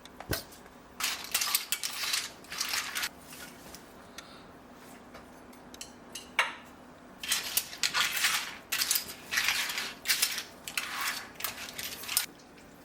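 Kitchen work with dishes and utensils: two runs of short, quick scraping and clattering strokes, with a few sharp clinks between them.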